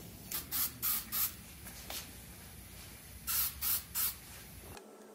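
Aerosol can of spray adhesive giving short hissing spurts onto a paper strip: four quick spurts, then three more about two seconds later.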